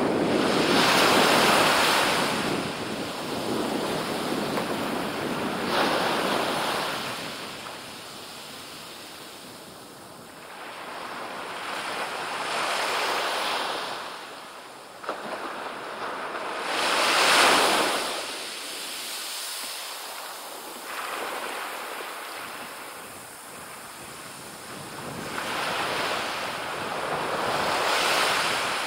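Small surf breaking and washing up a sandy beach: a rushing hiss that swells and fades with each wave every few seconds, loudest about two-thirds of the way through.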